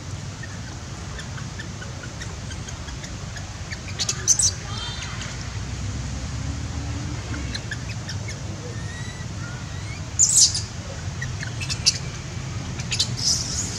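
Short high-pitched animal chirps in three brief clusters, about four seconds in, about ten seconds in and near the end, over a steady low rumble.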